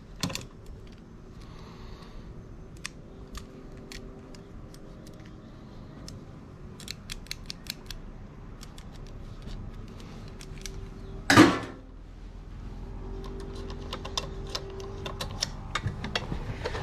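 Small metal parts and hand tools clicking and tapping as a sewing machine is taken apart, with one louder knock a little past the middle.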